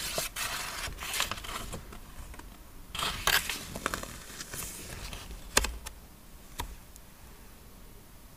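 Sheets of paper and a stiff card being handled, with irregular rustling in the first half and two sharp taps later on. It grows quieter toward the end.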